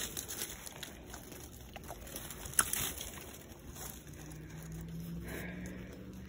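Handling noise from digging through dry leaf litter for old glass bottles: scattered small clicks and knocks, one sharper knock about two and a half seconds in. A low steady hum comes in over the last two seconds.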